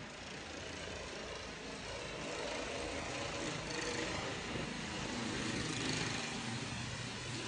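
Steady outdoor background noise: an even hiss over a low rumble, swelling slightly louder partway through.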